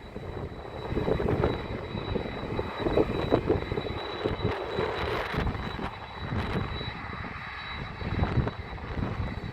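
Airliner engines rumbling loudly as the aircraft passes, surging and fluctuating, with a thin steady high whine above the roar.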